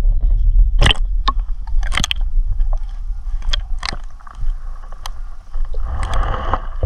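Audio from an action camera held underwater: a heavy, muffled low rumble of water against the waterproof housing, with scattered sharp clicks and knocks as the housing is handled.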